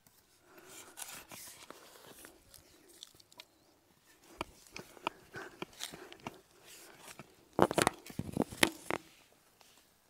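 Small hand spade digging into dry, loose soil: repeated crunching and scraping as the blade cuts in and levers earth and potatoes loose, with the loudest run of scrapes near the end.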